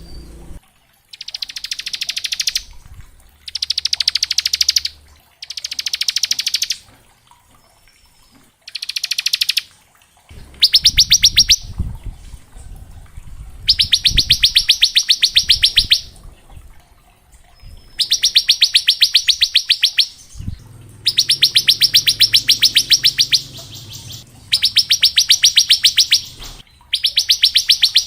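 A bar-winged prinia (ciblek) sings its 'ngebren' song: a series of very fast, buzzy trills of rapid repeated notes, each lasting one to two seconds, about ten of them with short pauses in between.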